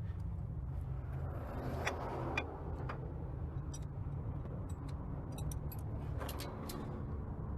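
A steady low mechanical hum, with scattered sharp metallic clicks and clinks of hand tools being handled and set against metal.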